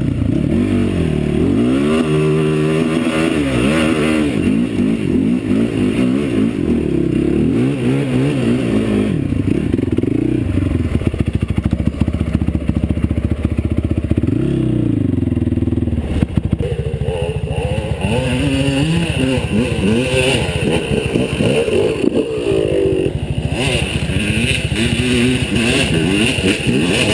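Dirt bike engine revving hard under load on a steep climb, its pitch rising and falling again and again as the throttle is worked.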